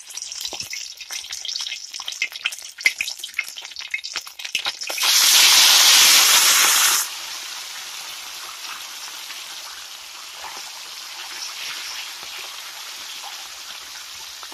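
Small chelwa fish deep-frying in hot mustard oil in a steel kadhai: crackling and popping for the first few seconds, then a loud burst of hissing about five seconds in that cuts off suddenly after two seconds, followed by steadier, quieter sizzling.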